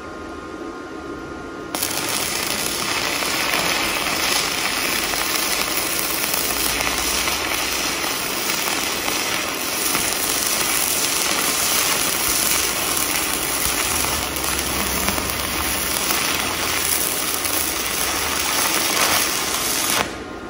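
Stick (MMA electrode) welding arc from a Weldinger MEW 180 miniSYN inverter welder running a bead on steel: a steady crackle and hiss that starts about two seconds in and cuts off just before the end, when the arc is broken.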